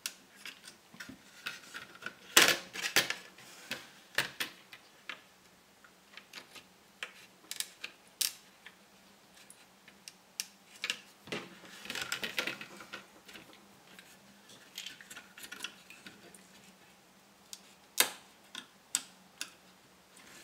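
Small flat-blade screwdriver prying a 40-pin Ferranti ULA chip up out of its socket: irregular clicks and taps of metal on the chip and socket, with bursts of scraping about two and a half and twelve seconds in.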